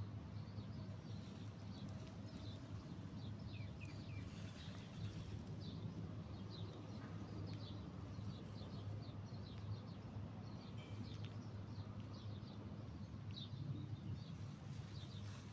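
Small birds chirping in many short, quick, irregular high calls over a steady low hum.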